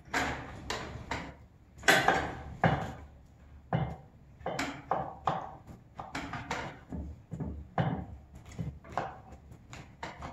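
Kitchen knife cutting roasted oranges into quarters, the blade knocking down onto a wooden board in an irregular run of chops, a couple of knocks a second.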